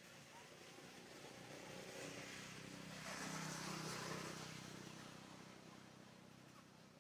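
A motor vehicle passing by: its engine and road noise grow louder to a peak about three to four seconds in, then fade away.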